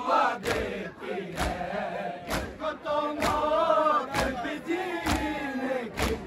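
A large crowd of men doing matam, striking their chests together in a steady beat about once a second, with a mourning chant (nauha) sung by many voices over the beats.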